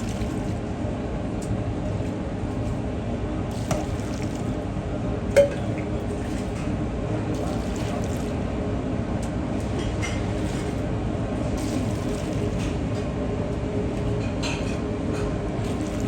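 Steady kitchen or eatery background hum with occasional clinks of dishes, the loudest a single sharp clink with a short ring about five seconds in.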